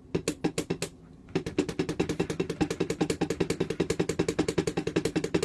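Wooden drumsticks striking the pads of a drum pad set. A few hits, a short pause about a second in, then a fast, even run of about ten strokes a second.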